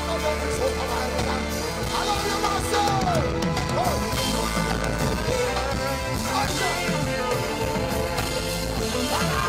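Live reggae band playing on stage, bass guitar and drums under a male singer's voice gliding through long, wordless held notes.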